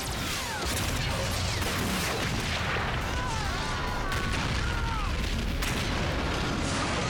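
Sci-fi battle sound effects: a continuous barrage of explosions and blasts over a low rumble, with many short laser-shot zaps sweeping down in pitch, densest in the middle.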